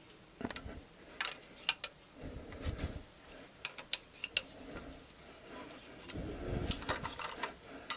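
Scattered sharp metallic clicks and clinks of a socket wrench and extension working on the bolts that hold an automatic transmission's oil filter, with two stretches of low muffled handling noise.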